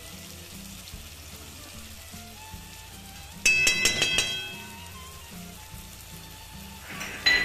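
Background music over food frying in a pan. Halfway through, a metal utensil clatters and rings against the pan, and there is a shorter ringing clink near the end.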